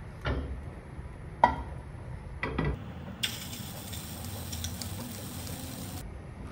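A metal frying pan knocks several times against the gas stove's grate, the sharpest knock about a second and a half in. Then batter hisses and sizzles steadily in the hot pan for about three seconds before cutting off.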